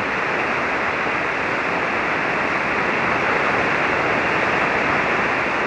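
Steady hiss of a shortwave ham radio receiver tuned to single sideband with no station talking: band noise, its top end cut off by the receiver's narrow voice filter.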